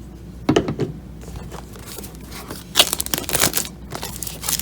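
Plastic shrink wrap being torn and peeled off a cardboard puzzle box: crinkling and tearing, a short burst about half a second in and a longer stretch from about two seconds on.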